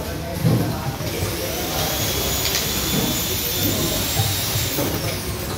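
A small high-speed electric motor spins up about a second in and runs with a steady hissing whine for about three seconds, then winds down near the end.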